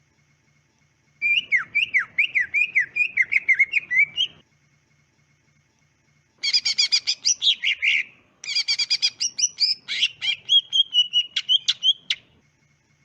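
Green leafbird (cucak ijo) song in three phrases. First comes a run of quick, repeated down-slurred whistles, then a rapid burst of clear notes, then a long, fast series that ends in a warbling trill.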